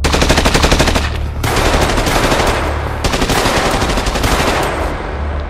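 Automatic gunfire in long bursts, rapid shots about ten a second, with a short break about a second in and the firing fading out near the end. A low steady drone runs underneath.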